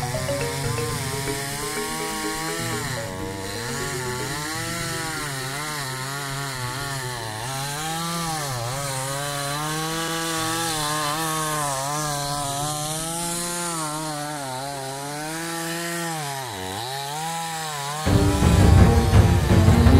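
Chainsaw cutting into the trunk of a large sena tree, its engine pitch rising and sagging as the chain bites and bogs in the wood, dipping hard twice. About two seconds before the end it gives way abruptly to a louder, busier sound.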